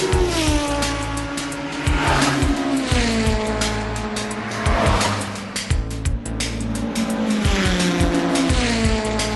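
Hong Kong double-decker tram running along its track: a low rumble with scattered clicks of the wheels over the rails. A pitched whine slides down in pitch and settles about every two to three seconds.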